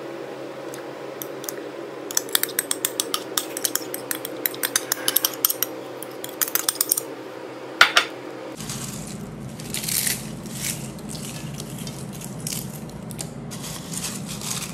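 A spoon clicking and scraping against a bowl in quick runs of ticks as a thick yogurt mix is scooped out, with one louder clink about eight seconds in. Then softer scraping and rustling.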